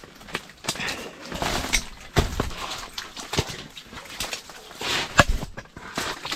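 Irregular close knocks, clicks and rustling, with a few heavier thumps: handling noise at close range.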